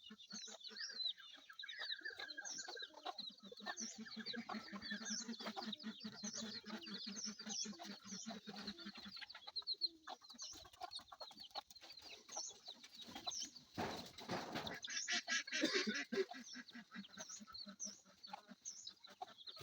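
Hill chickens clucking, with a continual run of short high chirps throughout and a brief rustling burst about two-thirds of the way through.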